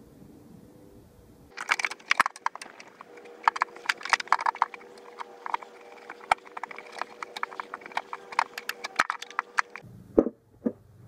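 Irregular metallic clicks and clacks as a new Honda Odyssey engine mount is handled and fitted into place, starting about a second and a half in, with two louder knocks near the end.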